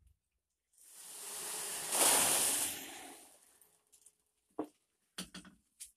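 Crisp fried snacks pouring out of a tipped deep-fryer basket: a dry rushing rattle that swells to a peak about two seconds in and fades out a second later. A few light knocks follow near the end.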